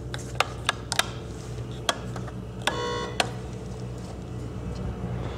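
Wall toggle switches flipped by hand, giving several sharp clicks, with a short electronic beep lasting about half a second a little under three seconds in. A steady low electrical hum runs underneath.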